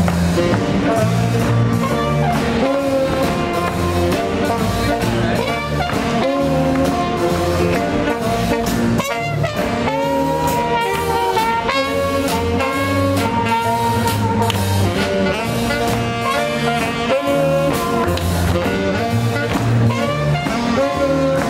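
Live swing jazz band playing a steady up-tempo tune, with brass over keyboard and bass.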